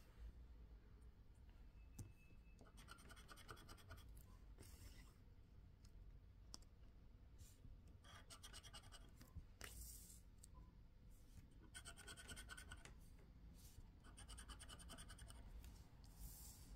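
Faint scraping of a scratch-off lottery card being scratched with a hand-held scratcher, in short bouts of quick back-and-forth strokes with pauses between.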